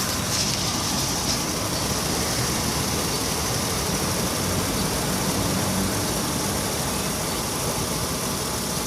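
Honda Odyssey minivan's V6 engine idling steadily, with an even hiss over it.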